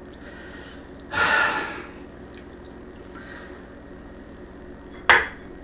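A man's loud breathy exhale through the nose about a second in, followed near the end by a brief sharp breath, over a faint steady room hum.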